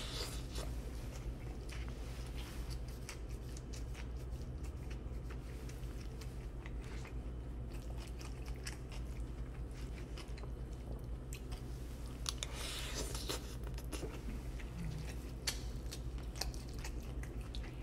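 Close-up chewing and biting of a mouthful of steak burrito bowl, with small clicks and scrapes of a fork in the bowl, over a steady low hum.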